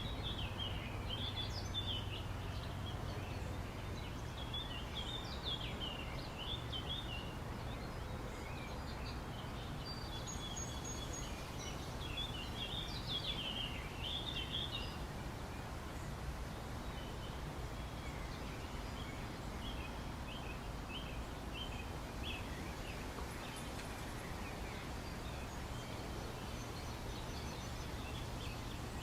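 Birds chirping in many short calls over a steady low background rumble, the chirping busiest in the first half and thinning out later.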